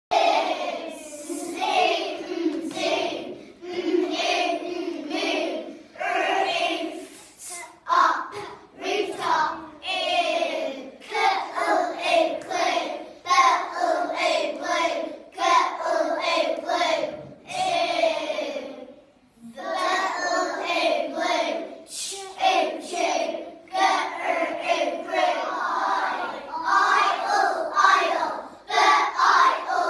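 A class of young children singing a phonics song in unison, voicing letter sounds such as 'oo', 'ue', 'ew', 'oi' and 'y', with a short pause a little after halfway.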